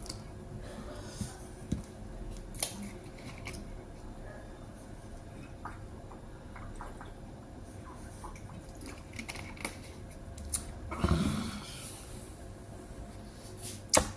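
Eating sounds: scattered light clicks of a spoon against a plate and quiet chewing, with a louder, longer noise about eleven seconds in and a sharp click near the end.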